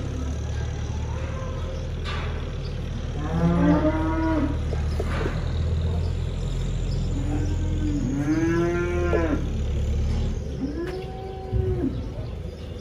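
Cattle mooing: several separate moos that rise and fall in pitch, the longest lasting over a second, over a steady low hum.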